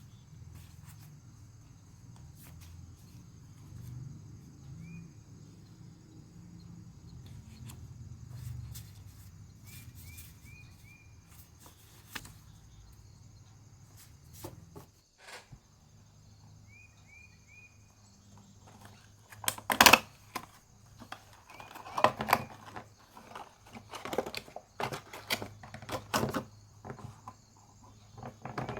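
Packaging being handled and opened: sharp crinkling and rustling crackles, loudest in the second half. Under it runs a steady high cricket-like trill, with a few short chirps now and then.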